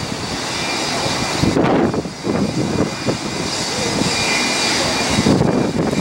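Jet engines of an American Airlines Boeing 757 rolling along the runway: loud, steady engine noise with a high whine.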